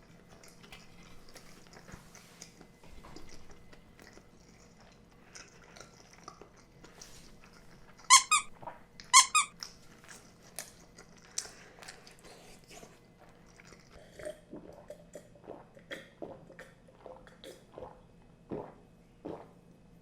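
Close-miked eating: soft chewing and small clicks of a spoon or chopsticks, with two loud, short squeaks about eight and nine seconds in.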